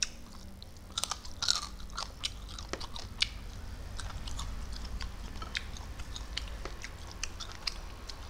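A person chewing a mouthful of rice and sausage eaten by hand, with scattered sharp, wet mouth clicks and lip smacks that are thickest about a second in.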